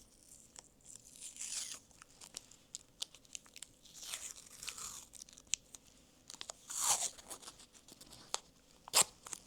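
Adhesive tape being pulled off the roll and torn, in several short rasping pulls with a brief squeak, the loudest about seven seconds in, amid small clicks of handling and a sharp click near the end.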